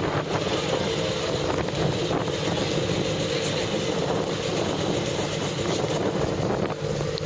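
A vehicle engine running steadily with a continuous drone.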